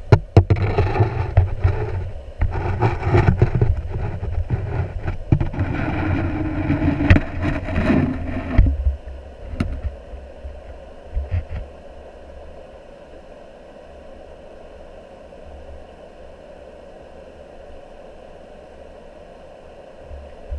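Muffled underwater noise through a submerged camera's housing: water rushing with irregular knocks and bumps, dropping about nine seconds in to a quieter, steady low rumble.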